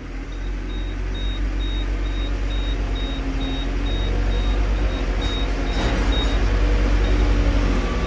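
Telehandler diesel engine running under load, heard from inside the cab as it pushes grain up a heap, growing louder as it works. A reversing alarm beeps steadily, about two or three beeps a second, and stops shortly before the end.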